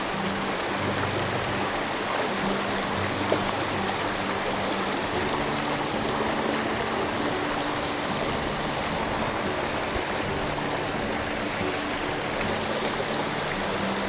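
Mountain stream water rushing steadily, with soft background music of low held notes underneath.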